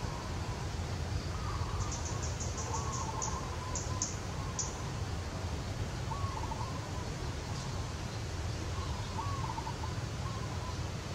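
Outdoor ambience: a steady low rumble with a quick run of about a dozen short, high chirps from about two to five seconds in, and faint short wavering calls now and then in the background.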